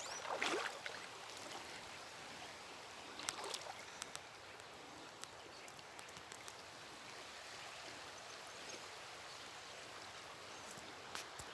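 Faint, steady rush of flowing rainwater runoff, with a few scattered clicks.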